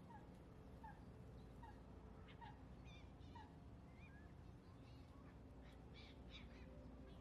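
Faint bird calls: a series of short, evenly spaced falling notes in the first half, with scattered higher chirps throughout, over a low steady background.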